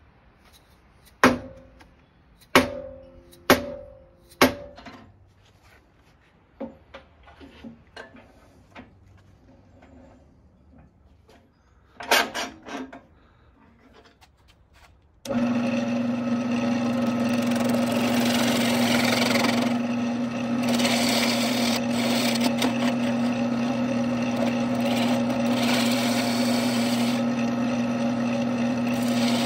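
A hammer drives a steel spur centre into the end of a redbud log: four sharp, ringing blows about a second apart, then lighter taps. About halfway through, a wood lathe cuts in running, with a steady hum, while a gouge cuts a tenon on the spinning bark-covered log. The rough noise of the cut rises and falls.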